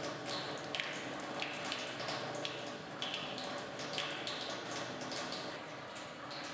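Wet sucking and slurping of a vampire drinking blood from a bite in the neck, in short repeated wet sounds about twice a second, over a low steady hum.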